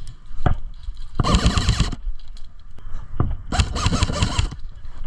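Airsoft guns firing: two rapid full-auto bursts of under a second each, with a couple of single sharp cracks before them.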